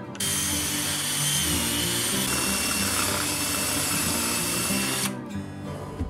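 Power drill running steadily for about five seconds, driving a screw to mount a steel door latch on a wooden block; its whine drops slightly in pitch about two seconds in, then holds until it stops. Background music plays underneath.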